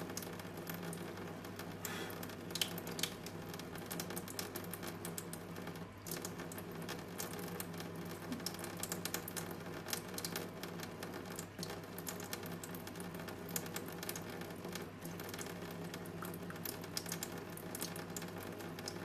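Thin stream of tap water running into a stainless-steel sink, with many irregular small splashing ticks, like patter, over a low steady hum.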